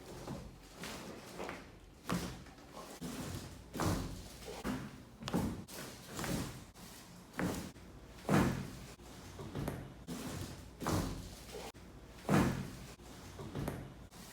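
Lumbar chiropractic adjustments in quick succession: each thrust gives a sharp thud of the body against the treatment table with the crack of the lower-back joints. There are about a dozen, roughly one a second.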